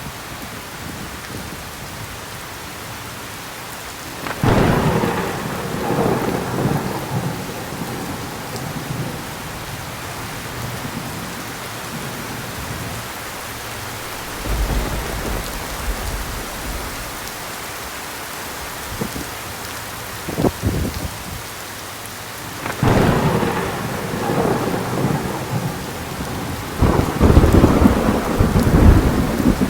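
Heavy rain falling steadily with repeated thunder: a sharp clap about four seconds in rolling into rumble, a deep low rumble near the middle, and another clap a few seconds before the end that rolls into the loudest rumbling.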